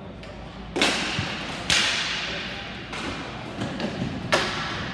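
Three sharp cracks of ball hockey play, from hard stick and ball hits: one about a second in, one a second later and one near the end. Each rings on in the big rink hall.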